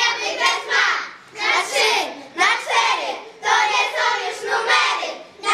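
Young girls' voices singing together in a steady chant-like rhythm, about two beats a second.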